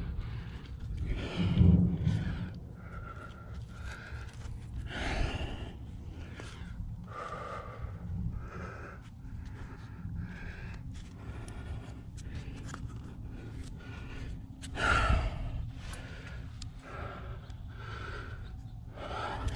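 A rock climber breathing hard and fast close to a body-worn camera, with quick breaths at roughly one or two a second: winded from the exertion of the climb's stiff finish. There are two louder, rougher breaths or rubs against the mic along the way.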